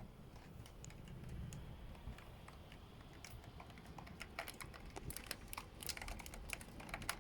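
Hailstones striking a hard surface: scattered sharp clicks that come faster and denser from about four seconds in.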